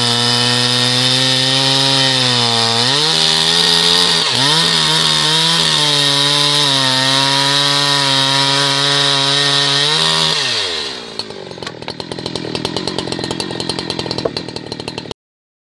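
Husqvarna 365 Special chainsaw's single-cylinder two-stroke engine at full throttle cutting through wood, its pitch sagging briefly twice under load. About ten seconds in the throttle is released and the engine drops to a ticking idle, then the sound cuts off abruptly near the end.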